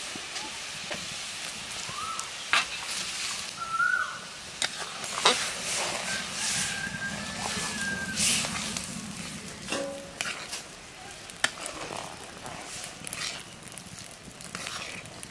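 Metal spatula stirring a wok of simmering khesari (grass pea) dal: a steady bubbling hiss, with a few sharp knocks and scrapes of the spatula against the pan.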